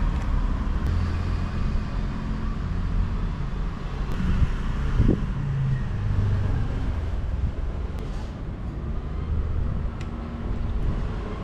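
Steady low rumble of a running motor-vehicle engine, with a few faint clicks.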